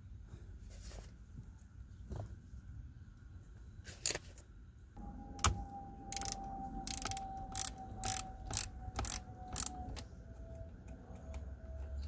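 Ratcheting tool with a T30 Torx bit clicking in short strokes as the screws holding the steering-wheel airbag module are loosened, a few scattered clicks at first, then a run of about two a second in the second half. A faint steady whine runs under the clicks from about halfway.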